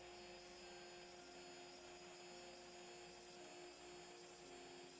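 Faint, steady hum of a CNC router spindle running while a V-bit engraves acrylic.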